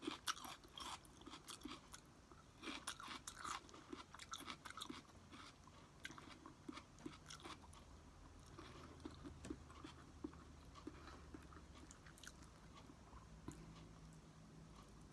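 A person chewing a mouthful of garlic fried rice close to the microphone, faint, with small crunches and mouth clicks, busiest in the first five seconds or so.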